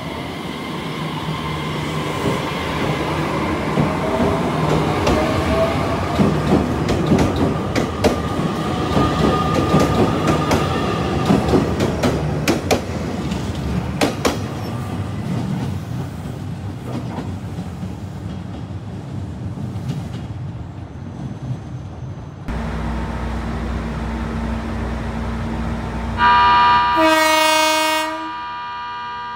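JR Kyushu 817 series electric train pulling along the platform, its traction motors whining and shifting in pitch while the wheels click over rail joints; the sound then fades away. Then a steady hum, and about 26 seconds in a loud two-tone train horn blast lasting about two seconds, as a 787 series limited express comes in.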